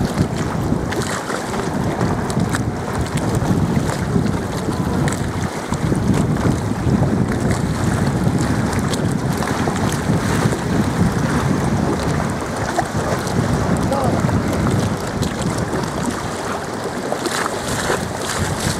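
Steady wind buffeting the microphone, with choppy water lapping against a moored boat's hull.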